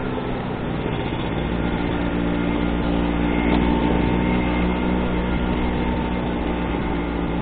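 Vespa scooter engine running steadily under way.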